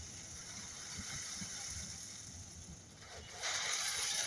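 Container freight train rolling past on the rails as its last wagons and brake van go by: a steady rumble with faint low knocks from the wheels. A louder hiss comes in about three and a half seconds in.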